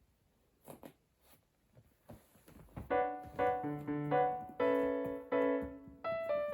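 A few faint clicks and knocks, then piano background music comes in about halfway and plays on, one note or chord after another.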